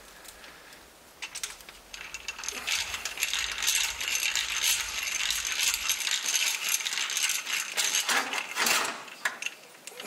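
A drill bit boring through a fibreglass circuit board, a dense rattling grind of the bit cutting the board. It builds from about a second in, runs strongly for several seconds and dies away near the end. The hole is a new lead hole for a larger replacement power-supply capacitor.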